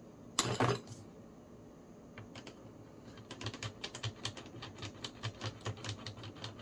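A short clatter of metal tools about half a second in, then a steady run of light metallic clicks, about four or five a second, from the internal mechanism of a Sturmey-Archer S3B three-speed hub as its parts are turned by hand during disassembly.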